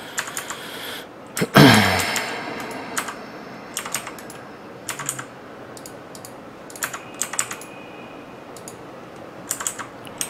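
Typing on a computer keyboard in short bursts of key clicks, entering drawing commands. About one and a half seconds in, one brief louder sound with a falling pitch.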